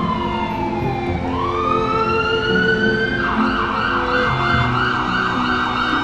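A siren wailing: a slow fall and then a rise in pitch, switching to a fast warble about three seconds in, over low sustained music notes.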